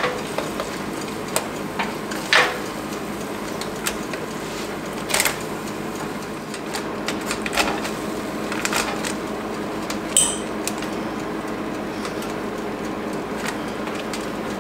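Bottom of a glass mason jar pressed down on soft roasted baby red potatoes on a foil-lined baking pan: a handful of irregular knocks and taps, about two to three seconds apart. The knock about ten seconds in has a short glassy ring. A steady low hum runs underneath.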